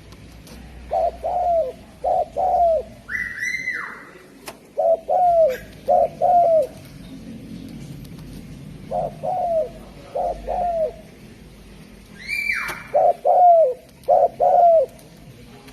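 Derkuku dove cooing in repeated phrases of short, low, bending coo notes, about four to a phrase, four phrases in all. Twice, about three seconds in and again near the end, a higher, longer note sweeps downward just before a phrase.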